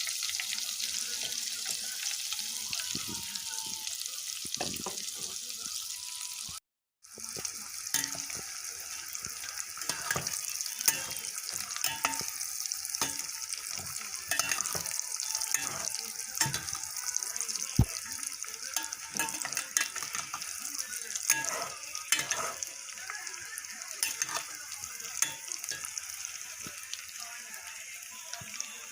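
Food sizzling in a hot pan, a steady hiss with scattered sharp crackles and pops. It breaks off briefly about seven seconds in, then carries on.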